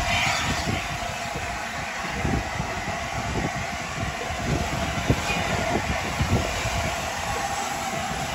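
LNER Class A4 Pacific steam locomotive moving slowly tender-first, a steady hiss of steam over an uneven low rumble.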